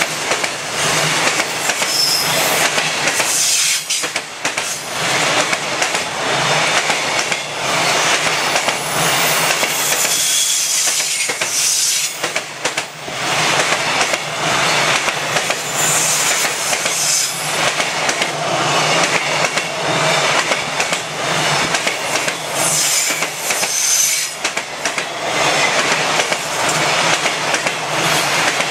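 Container freight wagons of a long train rolling past at close range, their wheels clattering over rail joints, with short high wheel squeals at times.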